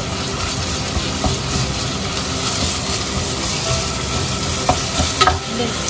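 Marinated minced pork and garlic sizzling in hot oil in a pot while being stirred with a wooden spatula. A few sharp clicks near the end.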